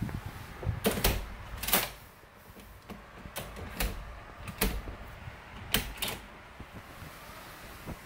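Sharp clicks and clacks of a smart door lock's latch and bolt being worked by hand, several in a row, some in quick pairs. The bolt still catches in the door and is being reset.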